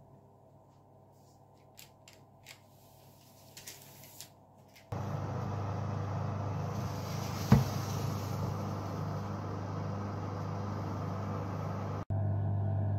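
A few faint small clicks, then a sudden steady hum with a hiss above it from an electric fan oven running with its door open. About halfway through there is a single sharp clunk of a metal baking tray going onto the oven rack.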